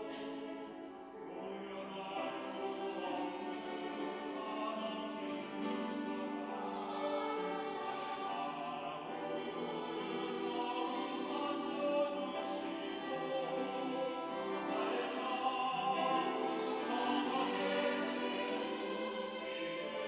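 Mixed-voice church choir singing an anthem in parts, the voices sustained and blended, growing a little louder in the second half.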